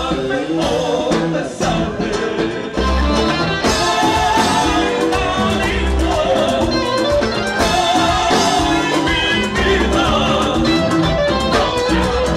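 Live band playing Ecuadorian popular music: male singing over acoustic guitars, with bass and percussion keeping a steady beat.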